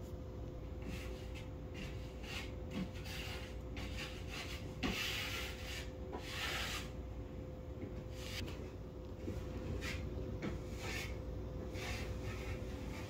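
Snow crunching and scraping in irregular short bursts as a puppy eats and paws at it.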